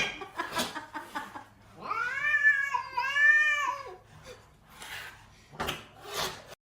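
A cat yowling: one long, drawn-out meow about two seconds in that rises and falls, with a short break in the middle. Brief breathy, noisy sounds come before and after it.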